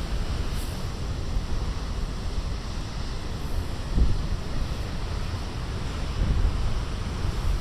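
Large storm waves breaking on a rocky shore: a steady rush of surf, with wind buffeting the microphone in low thumps about four seconds in and again a couple of seconds later.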